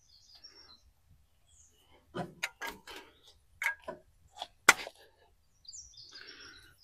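Hydraulic hose fittings and quick-coupler ends clicking and clacking in hand as they are fitted at a compact tractor's rear remote ports: a string of short metal clicks and knocks, with one sharper click about two thirds of the way through.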